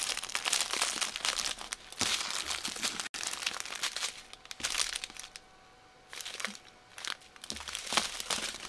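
Small plastic bags of diamond-painting drills crinkling and rustling as they are handled, folded and laid out, with a short lull a little past the middle.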